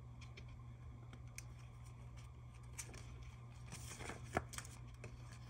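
Faint handling of paper and sticker sheets: a few soft clicks and rustles over a steady low hum.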